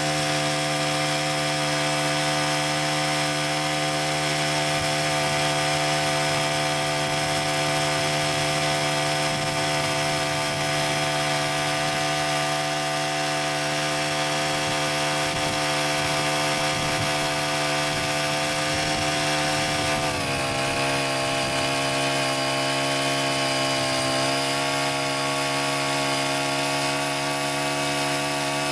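Honda GX35 four-stroke engine of a CY50 folding mini tiller running steadily. Its pitch drops slightly about two-thirds of the way through and again a few seconds later.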